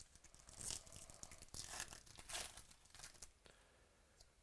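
Foil wrapper of a baseball card pack being torn open by hand, with crinkling. There are several rips, the loudest about a second in and again around two seconds in, then a few smaller crackles.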